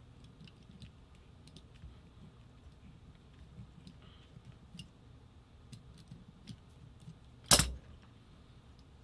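Small metal parts and tools handled on a workbench: faint scattered clicks and clinks, with one sharp, loud knock about seven and a half seconds in.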